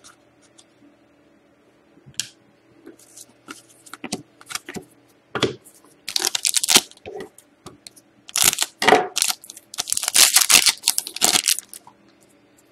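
Foil wrapper of an Upper Deck Artifacts hockey card pack crinkling and tearing as it is pulled open. The rustling comes in bursts, starting about six seconds in and loudest around ten to eleven seconds, with lighter handling of cards and the pack before that.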